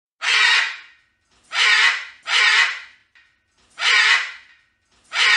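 A macaw squawking: five harsh, rasping calls, each under a second long and about a second apart.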